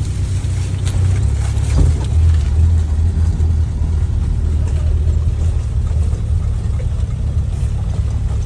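Suzuki Katana's swapped-in Toyota 5K four-cylinder engine running steadily with a low rumble.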